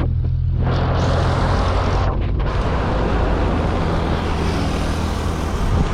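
Wind rushing over a chest-mounted GoPro Hero8 Black's microphone while riding a bicycle in traffic, with a motor vehicle's engine running close by as a steady low hum.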